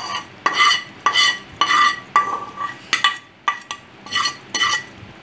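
A spoon scraping and knocking against a small pan, about a dozen quick ringing strokes, two or three a second, as the mustard-seed and curry-leaf tempering is scraped out of the pan onto yogurt.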